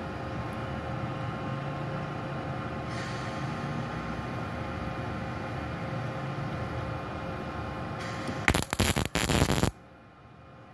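Steady hum, then about eight and a half seconds in a MIG welding arc strikes with loud, irregular crackling for about a second: a short tack with solid wire under CO2 shielding gas.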